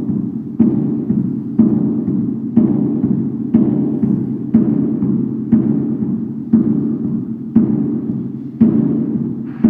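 Large 130 cm drum sounding in a steady rhythm of about one stroke a second, each stroke a sharp hit followed by a noisy wash that fades before the next, over a continuous low, booming resonance.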